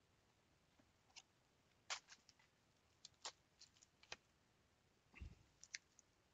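Near silence, broken by a few faint clicks and crinkles of foil trading-card packs being picked up and stacked.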